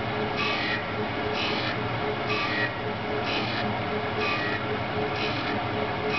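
Oliver Model 600 drill grinder running under power: a steady machine hum and whine, with a swishing swell that repeats about once a second as the mechanism cycles.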